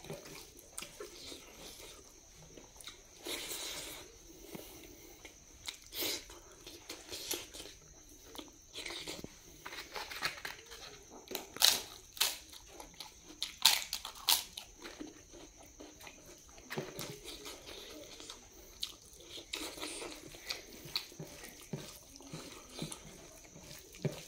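Close mouth sounds of someone eating: chewing with scattered sharp crunches, the loudest a cluster of crisp cracks about halfway through as a fried papad is bitten.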